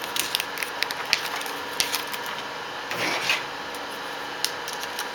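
Thin protective plastic sheet crackling and rustling as it is peeled off a new laptop LCD panel, with many small irregular clicks and a louder rustle about three seconds in. Small plastic taps follow as the laptop's plastic screen bezel is handled.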